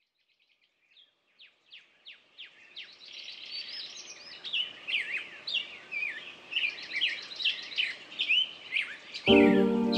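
Birdsong fading in: a string of short, quick downward chirps, then fuller overlapping warbling song. Near the end, music with steady held notes comes in louder over it.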